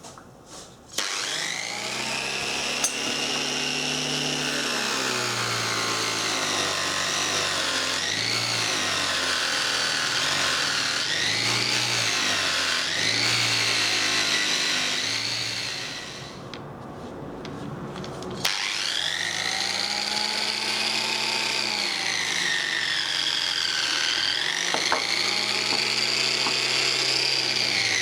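Electric power tool motor running under varying load, its pitch repeatedly sagging and recovering. It winds down about two-thirds of the way through and starts up again a couple of seconds later.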